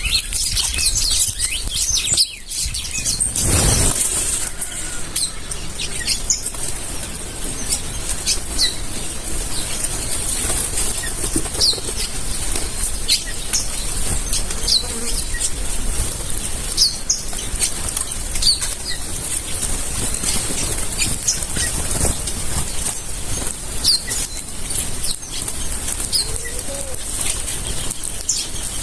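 A flock of birds with wings flapping and fluttering as they feed, short high chirps and tweets scattered throughout, and a louder rush of wings about three to four seconds in.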